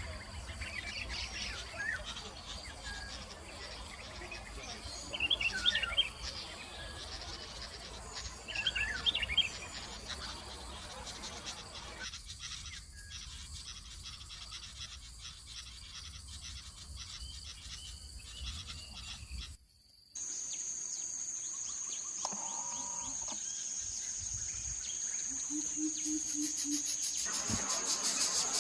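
Outdoor ambience with two short bird calls, about five and nine seconds in. After an abrupt cut, a steady high insect trill, like a cricket or cicada, grows slightly louder to the end.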